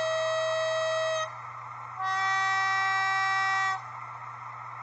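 Sound decoder of a Roco HO-scale BR218 diesel locomotive model sounding its horn through the model's small speaker. A high tone ends about a second in, then a lower tone is held for nearly two seconds, over the steady hum of the diesel engine sound.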